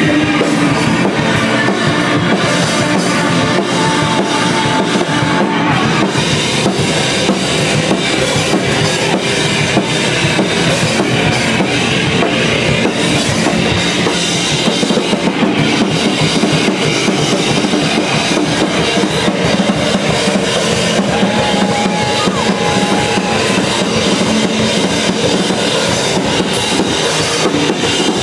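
A two-piece ambient shoegaze band playing live and loud: a drum kit keeps a steady beat under a dense, unbroken wash of effects-laden sound.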